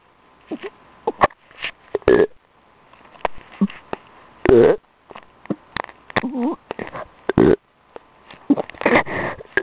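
A pet burping: a few short throaty burps among quick clicks and sniffs.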